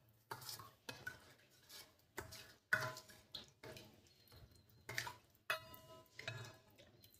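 Black ladle stirring buttermilk in a stainless steel bowl: faint, irregular scrapes and knocks against the bowl, a few leaving a brief metallic ring.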